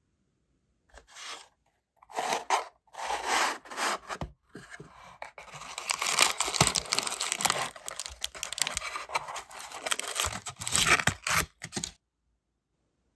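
Crumpled paper packing rustling and crinkling as a small kraft cardboard box is opened and a wax seal stamp is unwrapped from it. There are a few short rustles at first, then several seconds of continuous crinkling and rubbing that stop abruptly near the end.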